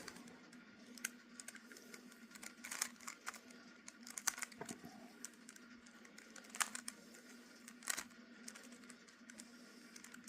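Plastic clicks and clacks of a Rubik's Cube's layers being turned, coming irregularly every second or two, over a faint steady hum.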